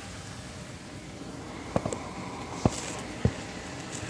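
Steady low hiss of liver frying in a pan, with four sharp knocks in the second half, spaced roughly half a second to a second apart.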